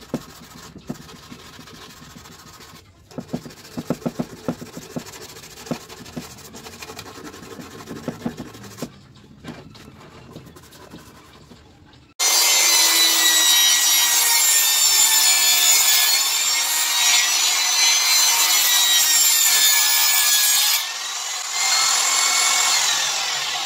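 Sandpaper rubbed by hand over a wooden stool frame in quiet, repeated strokes. About twelve seconds in, a table saw starts suddenly and runs loudly with a high whine as it cuts a board, dipping briefly near the end.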